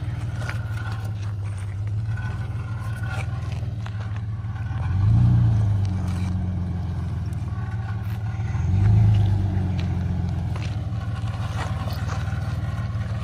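Isuzu Trooper's engine running low and steady as it crawls over rocks, revving up briefly twice, about five and nine seconds in, each time pitching up and falling back.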